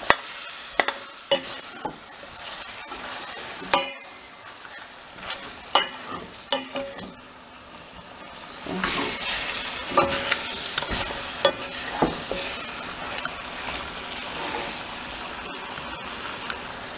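Chicken pieces sizzling as they brown in oil in a stainless steel pot, with a utensil clacking and scraping against the pot as they are stirred and turned. The sizzling grows louder about halfway through.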